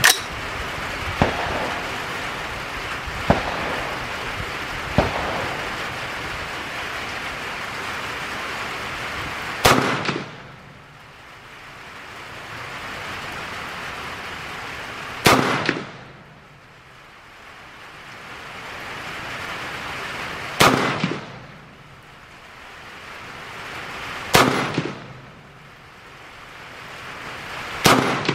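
Five rifle shots from an AR-style rifle chambered in 350 Legend, spaced about four to six seconds apart, each a sharp crack with a short ringing tail. Before the first shot, about ten seconds in, there is a steady hiss of rain with a few light clicks.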